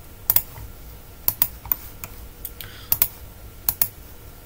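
Computer mouse clicking: a handful of short, sharp clicks, several in quick pairs, as steel columns are picked one by one in a CAD model.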